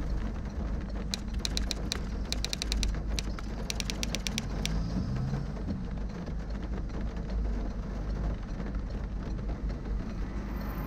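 Steady low rumble of a car heard from inside the cabin as it idles and creeps forward in traffic. A quick run of sharp ticks comes from about one to five seconds in.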